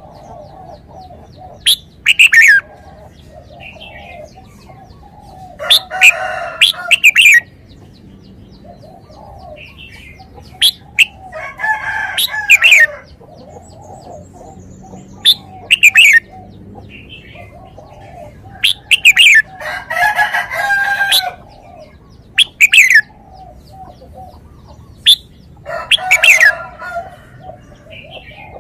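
Red-whiskered bulbul singing: loud, short whistled phrases of falling notes, repeated about every three seconds, some longer and busier than others. A fainter low note repeats steadily underneath.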